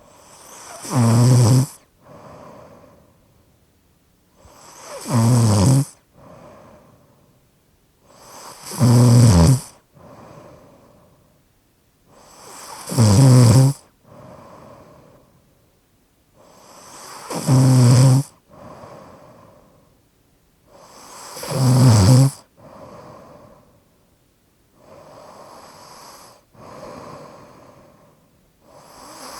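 A person snoring in a slightly obstructive way: six loud snores come about every four seconds, each followed by a softer out-breath. Near the end they give way to a few quieter breaths.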